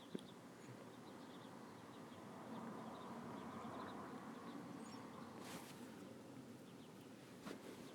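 Faint handling of a sheet of paper: soft rustling that swells in the middle, with a small click near the start and a short crinkle about five and a half seconds in. Faint high chirps sound in the background.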